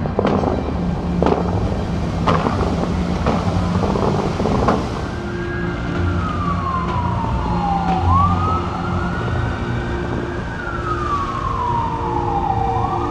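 An emergency vehicle's siren wailing from about five seconds in, its pitch sliding slowly down and quickly back up, twice. Before it come five sharp whooshing bursts about a second apart from the fountain's water jets firing, over a steady low hum.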